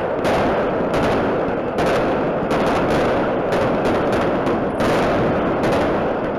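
Fireworks display going off overhead: a continuous barrage of overlapping bangs and crackle, with sharp shell bursts about once or twice a second.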